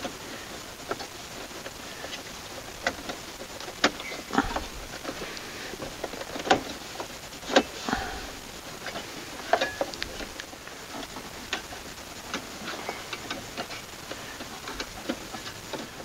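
Sheet-metal radio mounting sleeve being pushed and worked into the plastic dash opening: irregular clicks and knocks, a few with a short metallic ring, the loudest near the middle.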